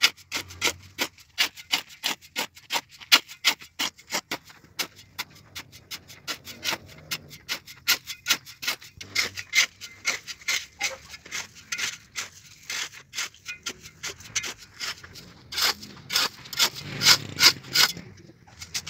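Steel shovel scraping across a concrete floor and through a dry mix of cement, stone dust and crushed stone, in short strokes two or three a second, louder near the end.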